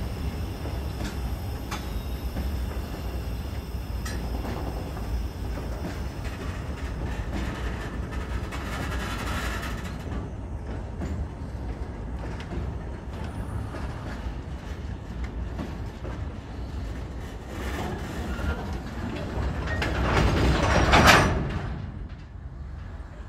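Chichibu Railway freight train of hopper wagons rolling slowly past on the rails, a steady low rumble that swells to its loudest about 21 seconds in and then eases.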